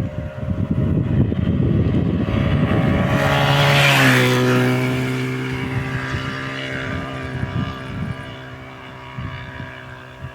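Jawa 350 motorcycle engine running, loud and rough at first. Its note drops in pitch about four seconds in, then steadies and fades away.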